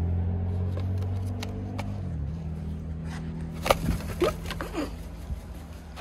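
A low, steady hum for the first two seconds or so, then a sharp click and a few short, falling calls from an African pied crow.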